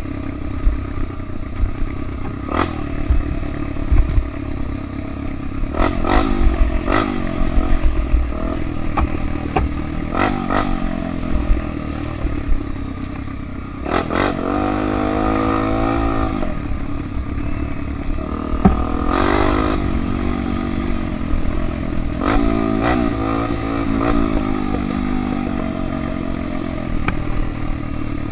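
Trail motorcycle engine running over rough ground, revving up and falling back several times, with scattered clattering knocks from the bike.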